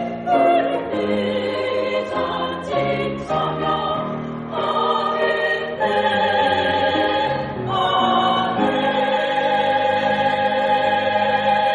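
Women's choir singing the closing phrases of a Korean sacred choral song, with vibrato, ending on a long held chord.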